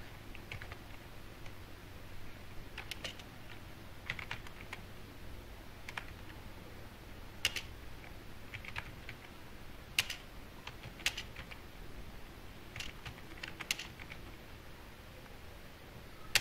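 Computer keyboard being typed on, space bar included: scattered single keystrokes and short clusters of taps, with pauses of a second or more between them.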